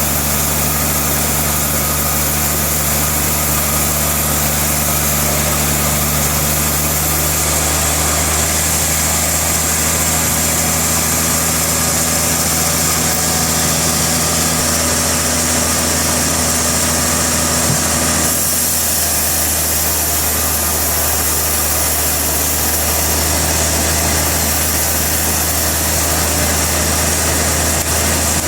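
Sawmill machinery running steadily and loudly: a constant engine-like hum under a dense hiss of noise, with the pitch of the hum shifting slightly partway through.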